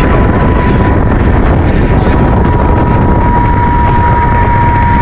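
Helicopter in flight, heard from inside the cabin: a loud, steady rumble of rotor and engine with a steady high whine over it.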